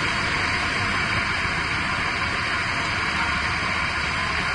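Steady, loud rushing roar from the soundtrack of news footage of a night street scene after a gas main rupture, an even noise with no breaks.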